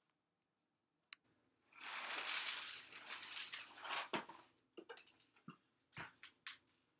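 Chex cereal poured from the box, the dry pieces rattling down onto a face and a tile floor for about two and a half seconds, followed by scattered clicks and crunches of single pieces.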